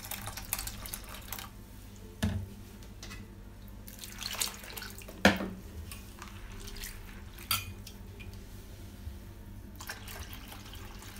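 Water pouring and splashing off soaked sprouted moong beans from a steel bowl into a strainer in a steel pot, with hands swishing through the wet beans to float off the loosened green skins. A few sharp knocks, the loudest about five seconds in.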